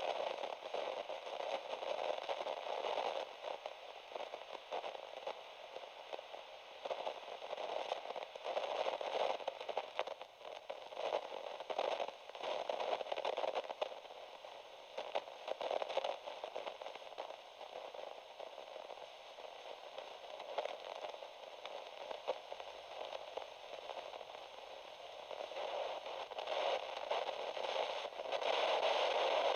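Radio static: a steady crackling hiss, thin and midrange-heavy like a detuned radio, swelling and fading in waves and growing louder near the end.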